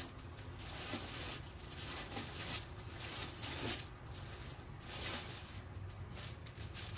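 Rustling and light handling noises as goods are rummaged inside a cardboard box and a wrapped package is lifted out, over a steady low hum.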